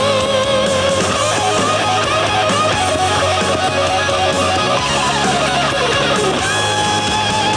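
Rock music in an instrumental passage with no singing: electric guitar, with a lead line that wavers and bends in pitch over a steady band backing.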